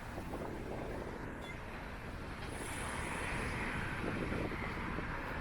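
Wind rumbling on the microphone outdoors, with a rushing hiss that grows louder about halfway through.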